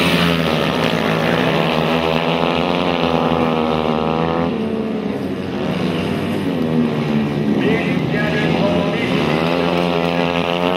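Several youth speedway motorcycle engines running at race pace, their pitch rising and falling as the riders open and close the throttle; the engine note drops briefly about halfway through, then climbs again near the end.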